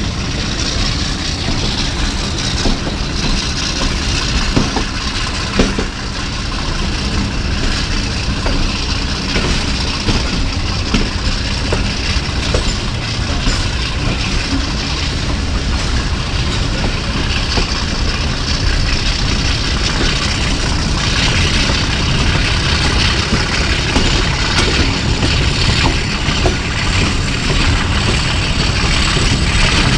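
Pakistan Railways HPU-20 diesel-electric locomotive's engine chugging, with the steady rumble and rattle of the train.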